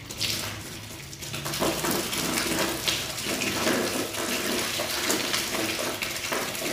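Water poured steadily from a plastic bucket into a glass, overflowing and splashing onto the floor; the pouring grows louder about a second and a half in.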